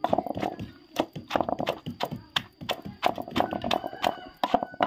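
Wooden pestle pounding green papaya salad in a mortar: a quick, regular run of dull knocks as the pestle strikes the shredded papaya and the bowl.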